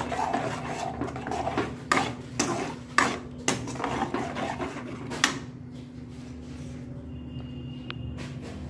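Metal spatula stirring and scraping a thick masala gravy in a metal kadai, with several sharp clanks of the spatula against the pan over the first five seconds. After that the stirring stops and only a steady low hum remains.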